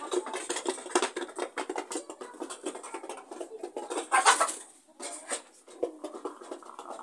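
Chickens calling, with one louder cluck or squawk about four seconds in, over a dense pattering of small taps.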